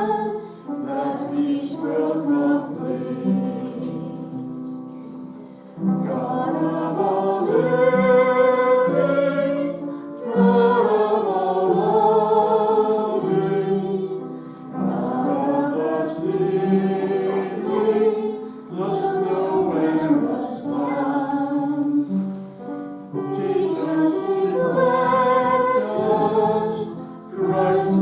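A group of voices singing a hymn together, in phrases of a few seconds with brief breaks between them.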